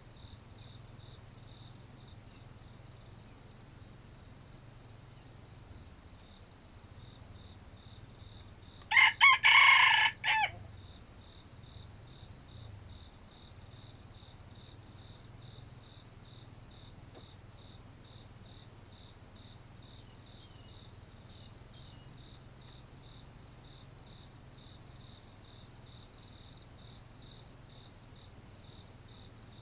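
A red junglefowl rooster crows once about nine seconds in, a short crow of about a second and a half that breaks off near its end. Throughout, a steady, evenly pulsing chorus of crickets.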